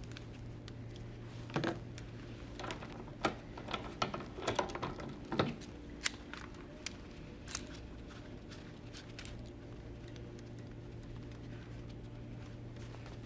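Small metallic clicks and clinks of hand-handled hardware: thumb screws being loosened on the XP-LOK wire tensioning blocks and the excess wire pulled free. The clicks come in a busy run over the first half and then thin out, over a steady low hum.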